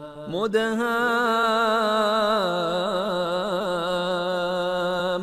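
A reciter's voice in melodic Quran recitation (tajweed), sliding up about half a second in into one long held vowel with wavering ornaments.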